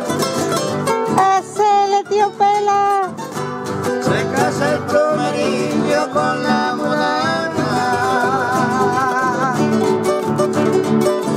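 Several acoustic guitars playing a gato cuyano instrumental passage: a steady strummed rhythm under a picked melody that holds a few long, wavering notes.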